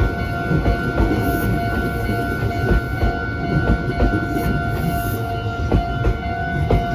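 Meitetsu 2000 series μSKY electric train passing over a level crossing: a steady rumble with the wheels clacking over the rail joints about every half second to second. The crossing's warning bell keeps ringing with a steady tone throughout.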